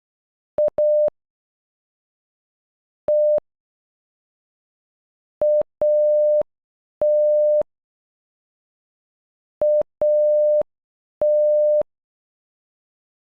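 Morse code sidetone, a single steady beep of about 600 Hz, keying the word "AT" (dit-dah, dah). It sounds once at normal speed about half a second in, then twice more at half speed with beeps twice as long; each beep starts and stops with a faint click.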